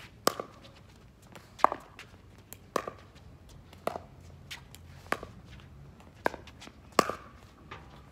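Pickleball paddles striking a plastic pickleball back and forth in a rally: seven sharp pops, roughly one a second, with fainter ticks between them.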